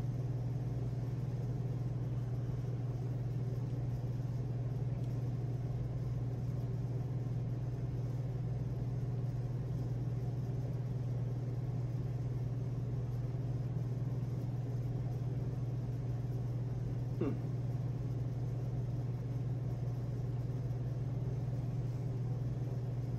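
Steady low room hum with no speech, and one brief faint sound about 17 seconds in.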